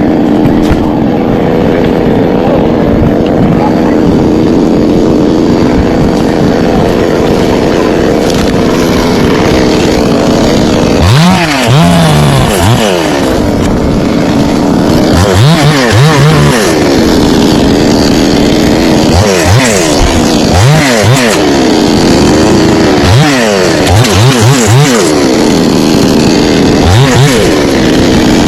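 Chainsaw running steadily. From about a third of the way in, it revs up and drops back again and again while cutting through a coconut palm trunk.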